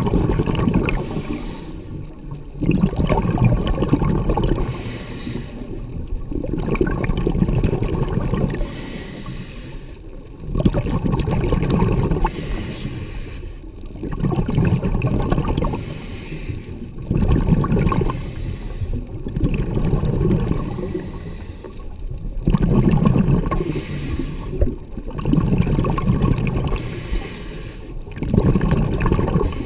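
Scuba diver breathing through a regulator underwater: a short hissing inhale, then a longer bubbling exhale, repeating about every three seconds.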